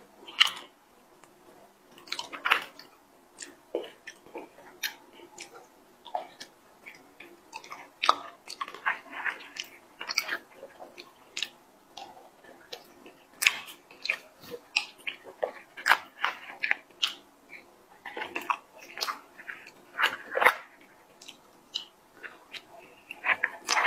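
Close-miked eating of soft chocolate lava cake from a spoon: wet lip smacks, sucking and chewing clicks at irregular intervals.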